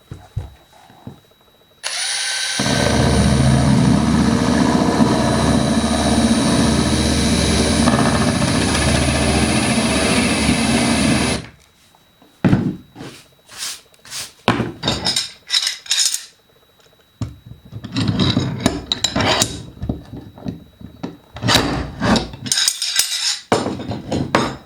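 Power drill turning a nail-head trimmer cutter into wood to uncover a nail head sunk below the surface. It runs continuously for about ten seconds, then in a series of short bursts.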